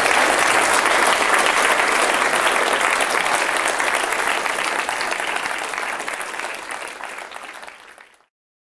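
Audience applauding after a lecture, fading over the last few seconds and then cut off to silence near the end.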